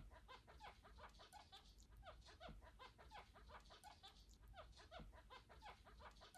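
Faint, quick runs of short, pitch-gliding squeaks from SpongeBob's squeaky boots, a cartoon sound effect, repeating a few times a second with brief breaks.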